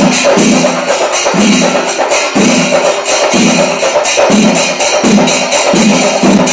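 Traditional Kerala temple percussion: chenda drums struck with sticks together with clashing hand cymbals, playing a loud, continuous rhythm.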